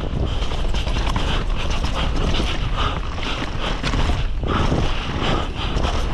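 Downhill mountain bike at race speed on a dirt trail: tyres rumbling and skidding over the dirt, with the bike's chain and frame clattering over bumps and wind buffeting the camera microphone. The noise dips briefly about four seconds in.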